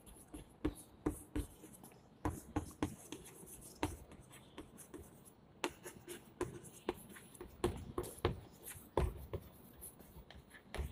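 Chalk writing on a blackboard: a run of short, irregular taps and scratches as letters are stroked out.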